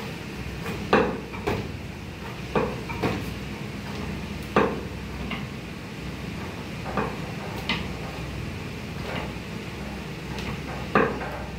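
Irregular metallic clicks and knocks as a hydraulic crimping tool's head is handled and repositioned on a cable connector, over a steady low hum.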